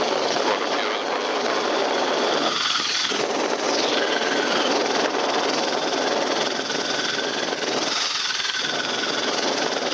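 Rescue helicopter hovering, its engine and rotor noise heard steadily from the open cabin door, with a faint wavering high whine running through it.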